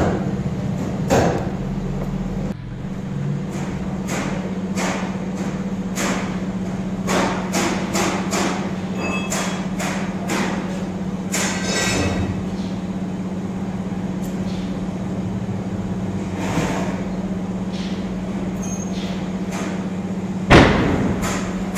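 TIG welding on stainless steel: a steady low hum while the arc burns, broken by irregular sharp clicks and knocks, with one loud thump about a second before the end.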